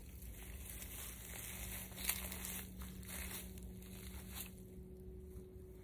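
Rustling and crinkling of handling noise as a fishing rod is swung to cast, with one sharp, louder swish about two seconds in.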